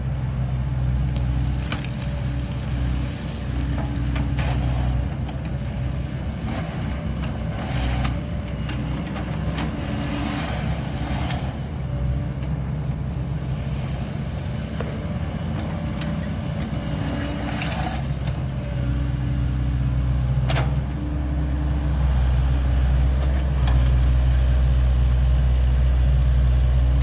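SANY SY75C excavator's diesel engine running steadily while it works gravel, with a few short clatters and a rise in engine level over the last few seconds.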